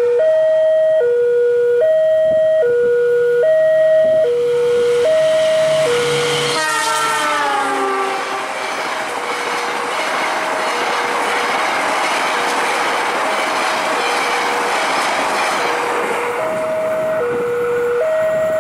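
Level-crossing warning alarm sounding a steady two-tone signal, alternating between a higher and a lower tone about every three-quarters of a second. About six and a half seconds in, the diesel locomotive's horn sounds with its pitch falling as it passes, and the Argo Dwipangga passenger train then runs past over the crossing at speed for about eight seconds, the alarm going on underneath and loud again near the end.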